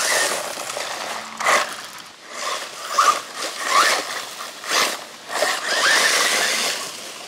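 RLAARLO 1/14 brushless 4WD RC buggy driving hard over loose dirt: tyres scrabbling and throwing dirt in repeated bursts as the throttle is punched, with the brushless motor whining up briefly under several of them.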